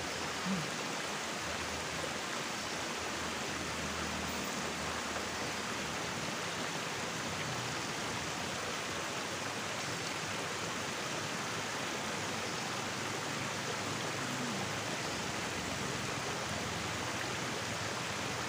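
River water flowing steadily: a continuous, even rush of water.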